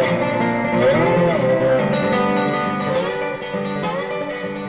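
Background music: a picked acoustic guitar instrumental, with one note bent up and back down about a second in.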